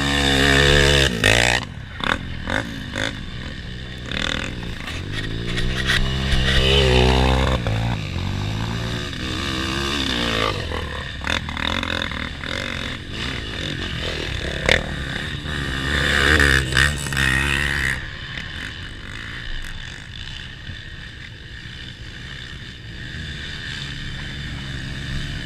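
Trail motorcycle engines revving up and down repeatedly as the bikes climb, with scattered clicks and knocks. The engine sound eases to a steadier, quieter run about two-thirds of the way through.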